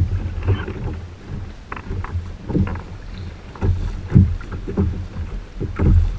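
Small choppy waves slapping irregularly against a plastic sit-on-top kayak hull, with wind buffeting the microphone.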